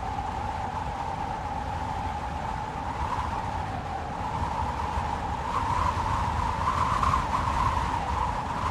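Blizzard wind howling, with a steady wavering whistle over a low rumble that grows a little louder about halfway through.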